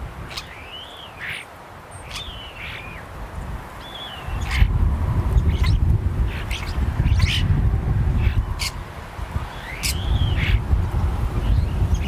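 Wild birds calling: a few arched whistles, rising then falling, and scattered sharp clicks. Underneath is a low rumble that becomes much louder about four seconds in.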